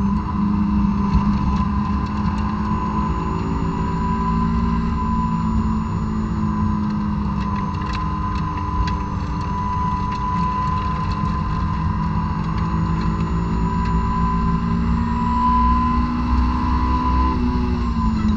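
2006 Honda S2000's 2.2-litre inline-four with stock exhaust, heard from inside the cabin, running steadily at high revs under throttle. It climbs higher in pitch near the end as the car accelerates, over steady tyre and road noise.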